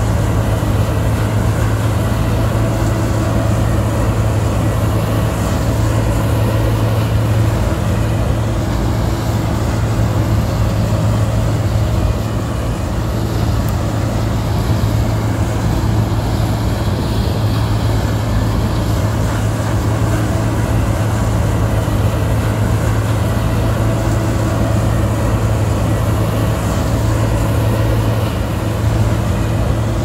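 Gleaner A76 tracked combine running steadily under load while harvesting soybeans: a deep, even engine hum over the rush of its threshing and header machinery.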